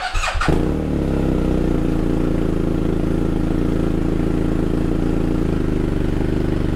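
BMW R1250GS boxer twin with an SC Project Adventure titanium exhaust, cold-started: it cranks briefly, catches about half a second in with a fruity, barky note, and settles into a steady idle, echoing inside a closed garage.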